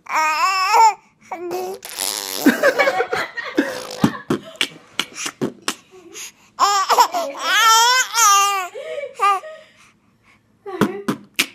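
Baby girl laughing in high-pitched, wavering squeals, in bursts near the start and again past the middle.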